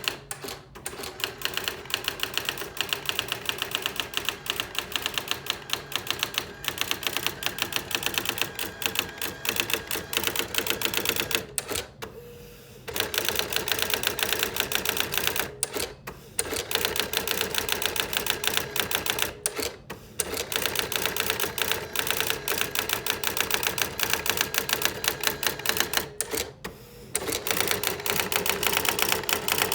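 Brother AX-15M electronic daisy-wheel typewriter printing on its own in demo mode: a rapid, even clatter of print strikes, pausing briefly about four times before starting again.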